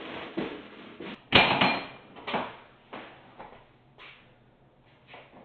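Irregular metallic knocks and clanks at a walk-in cooler door and its metal latch handle, the loudest about a second in, then fainter ones.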